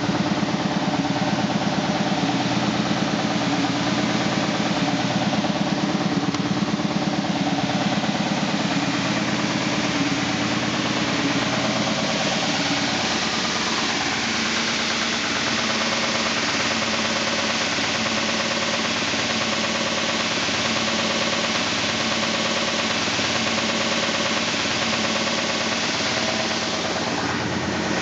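SCMI Sandya 3 37-inch wide belt sander running steadily on its 24-horsepower main motor, with a fast regular beat from the extremely high taped seam of the abrasive belt going round, not a fault in the sander itself. The deep hum thins out about halfway through.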